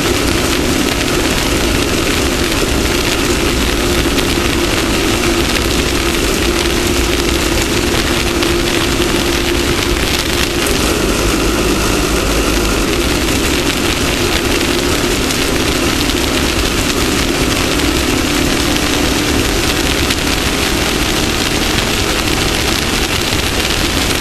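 Off-road race vehicle running at speed: a steady engine note under a loud, dense hiss of wind and terrain noise.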